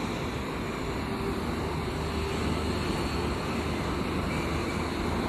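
Steady outdoor background noise, an even low rumble with no distinct events.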